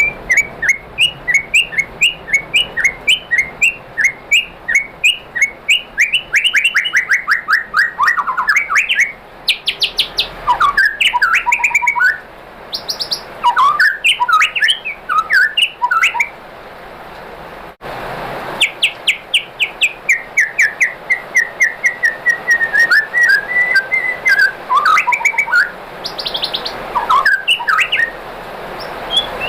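White-rumped shama (murai batu) singing: fast runs of repeated chirps and trills mixed with whistled phrases, with a brief break about two-thirds of the way through.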